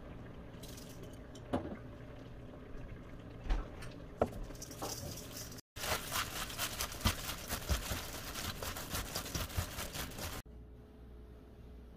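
A hand in a thin plastic glove tossing seasoned salad greens in a stainless steel bowl, making a dense crinkling, squishing rustle from about six seconds in until it stops abruptly near ten seconds. Before that come a few light taps and clicks as the seasonings go in.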